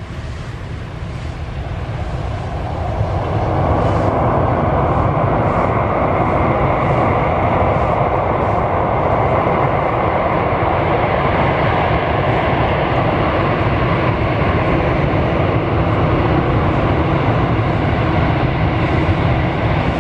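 Twin-engine Boeing 737 jet airliner on its takeoff roll at takeoff thrust: a loud jet roar with deep rumble that swells over the first few seconds and then holds steady.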